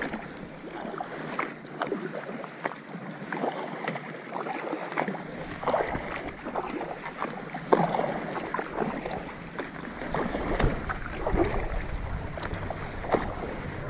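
Double-bladed kayak paddles dipping and splashing in seawater, stroke after stroke, with wind on the microphone that rumbles more heavily in the last few seconds.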